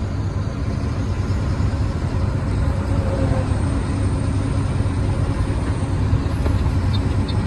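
Steady low rumble of a truck's engine and road noise heard inside the cab while driving. A quick, regular ticking starts near the end.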